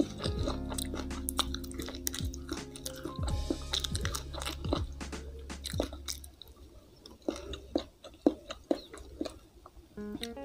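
Close-miked chewing and crunching of crispy fried catfish eaten by hand, a run of sharp wet crunches and mouth clicks. Soft background music runs under it for the first six seconds or so, then drops out, leaving the eating sounds alone.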